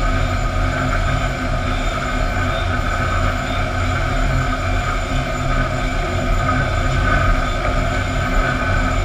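Sawmill chain conveyors and line machinery running steadily as they move fence boards along, a continuous mechanical din with a constant low rumble.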